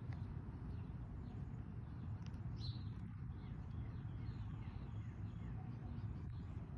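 Faint bird chirps, a series of short descending notes with one brighter chirp about two and a half seconds in, over a steady low rumble.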